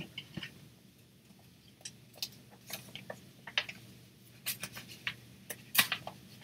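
Paper pages of a handmade junk journal being turned and handled: soft, irregular paper rustles and small clicks, the loudest a little before the end.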